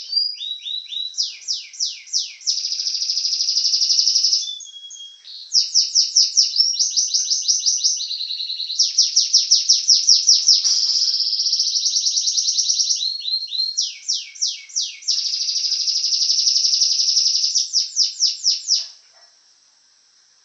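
Domestic canary singing a long, loud song of fast trills and repeated downward-sweeping notes, stopping about a second and a half before the end.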